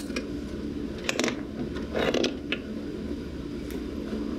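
A few short clicks and scrapes as the identifier's sample hose is disconnected from the A/C low-side service port, over a steady low hum.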